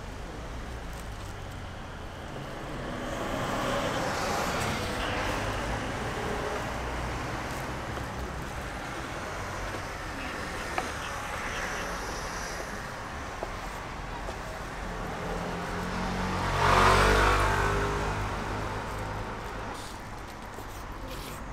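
Road traffic passing by: a car goes past about four seconds in, and a louder, closer one swells up and fades away about three-quarters of the way through, over a steady low traffic rumble.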